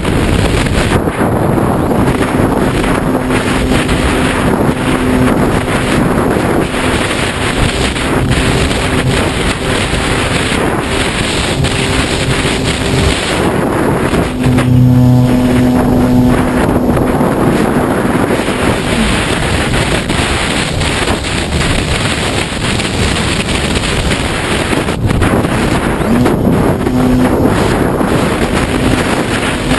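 Strong wind rushing over an RC glider's on-board camera, with the Radian Pro's electric motor whining at a steady pitch underneath. The motor tone grows loud for about two seconds around the middle.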